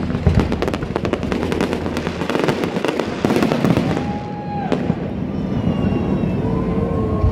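Fireworks display: a dense run of rapid bangs and crackles for the first few seconds, thinning out to a single sharp bang a little after the middle.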